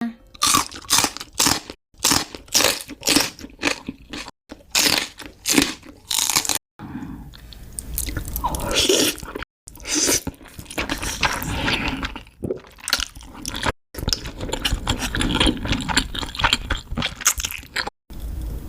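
Eating sounds: a quick run of crunchy bites, about two a second, then steadier chewing. The sound is broken by several brief silences where it cuts off and starts again.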